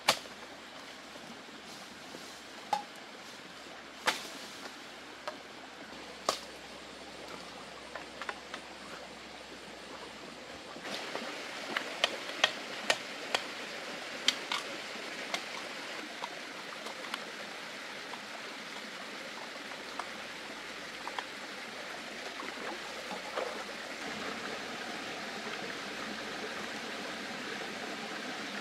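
Steady rushing of running water, with scattered sharp clicks and snaps, several of them close together between about twelve and fifteen seconds in. The rushing gets louder about eleven seconds in.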